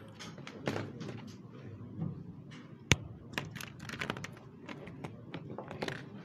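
Scattered light taps and knocks with rustling between them, and one sharp click about three seconds in.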